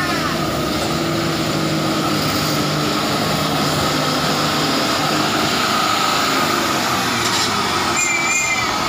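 Mitsubishi Fuso 220 PS 6x4 dump truck's diesel engine running steadily under load as the truck crawls through deep mud and passes close by.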